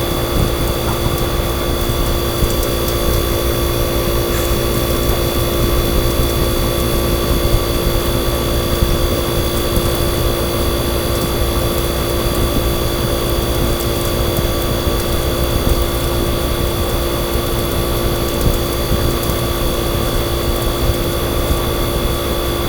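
Tecumseh AJA7490ZXD hermetic refrigeration compressor running steadily: a constant hum with several steady whining tones over a low rumble.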